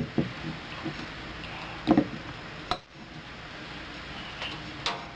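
A few short, light clicks and knocks, spaced a second or more apart, from handling the glass cologne bottle and its sprayer.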